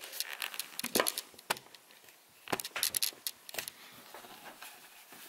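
Handling noise: light clicks and knocks as the plastic Wi-Fi router and its cables are picked up and moved about on a wooden table, quieter in the last second or so.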